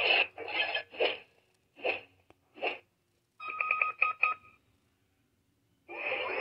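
Power Rangers Cosmic Fury morpher toy's small speaker playing short electronic sound effects as its button is pressed repeatedly: several brief bursts one after another, then a quick run of beeps. After a short pause, a longer steady sound starts near the end.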